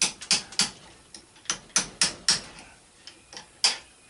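A clamp being tightened down on the workpiece: a run of about a dozen sharp clicks, unevenly spaced.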